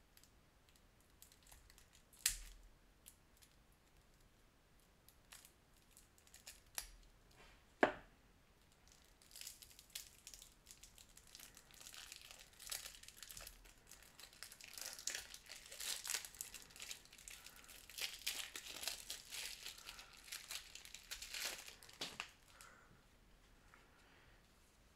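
Plastic shrink wrap being cut and peeled off a deck of game cards. There are a couple of sharp clicks first, then crinkling and tearing from about nine seconds in until a few seconds before the end.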